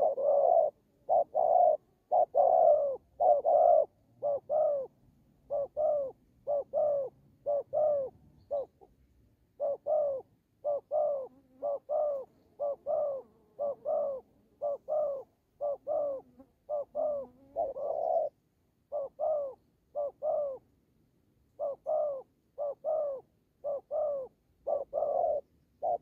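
Spotted doves cooing in short, clipped notes repeated in quick runs of two to four, with brief pauses between runs. This is the aggressive cooing of a decoy dove and a wild dove squaring off in a territorial fight.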